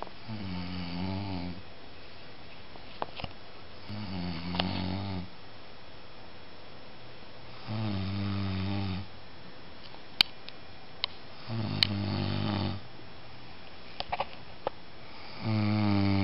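A sleeping man snoring: five deep, pitched snores about four seconds apart, each lasting over a second, the last one the loudest. A few short sharp clicks fall between the later snores.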